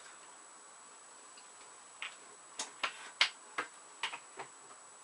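A quick, irregular run of about eight sharp clicks and taps, starting about two seconds in, the loudest near the middle, over a faint steady hiss.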